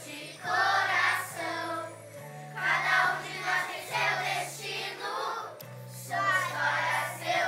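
A group of children singing a song together in Portuguese, in short phrases over a steady low backing accompaniment.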